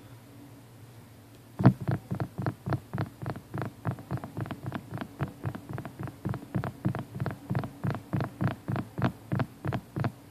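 Fingers tapping quickly and evenly on bedding close by, about four to five taps a second, starting about a second and a half in after a faint low hum.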